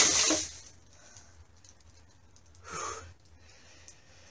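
Tail of a crash as bags of canned goods and a luggage scale hit the floor after the 3D-printed GT-PLA hook holding them breaks under load, dying away within half a second. Then a single short breath about three seconds in.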